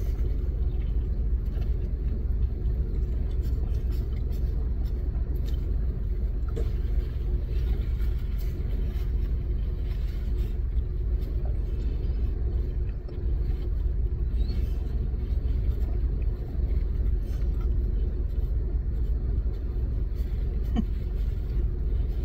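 Steady low rumble and hum of a car's engine idling, heard inside the closed cabin, with faint small clicks of chewing throughout.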